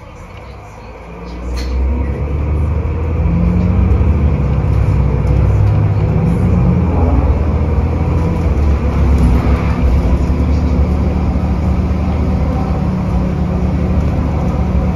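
Inside a 2001 Nova LFS transit bus, its Cummins ISC inline-six diesel pulls away from a stop, building up quickly about a second or two in. It then settles into a steady, loud low drone with road noise as the bus runs at speed.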